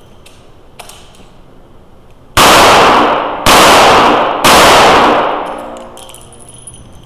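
Three revolver shots about a second apart, each leaving a long echo that dies away in the indoor range.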